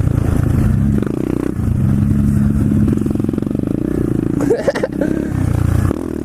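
Pit bike engine running under throttle while riding, the engine note easing off and picking back up a couple of times, with a brief break-up in the note about four and a half seconds in.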